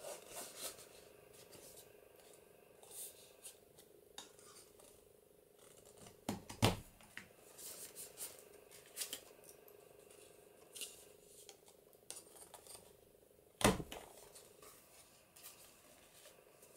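Paper handling as holes are poked through a folded paper signature and its template: light rustles and small clicks, with two sharper knocks about seven seconds apart.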